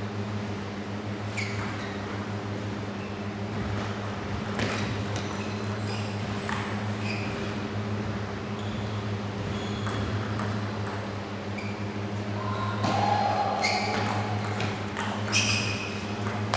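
A table tennis ball clicking sharply and irregularly off the bats and the table during play, over a steady low hum.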